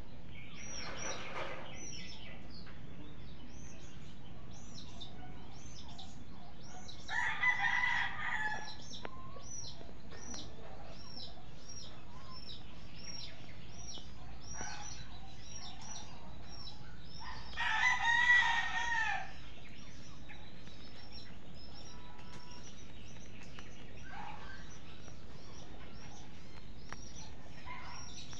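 A rooster crowing twice, each crow about a second and a half long and about ten seconds apart, with a few fainter calls between. A steady series of short high chirps repeats about twice a second throughout.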